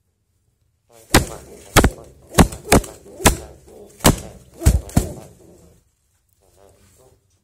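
A brooding pigeon defending its eggs against a hand reaching into the nest, striking out in a series of about eight sharp slaps over some four seconds, with scuffling between the blows.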